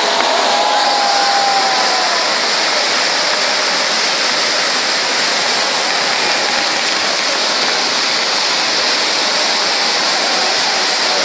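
Ground fireworks spraying sparks: a loud, steady rushing hiss of burning fountains and crackling spark clusters, with a thin whistle sliding down in pitch near the start.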